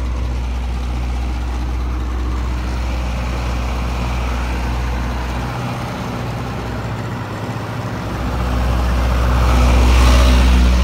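Mister Softee ice cream truck idling with a steady low hum, growing louder near the end.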